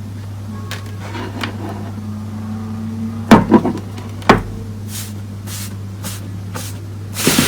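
Slime being handled: a few sharp pops and taps over a steady low hum, the loudest about three and four seconds in and again near the end.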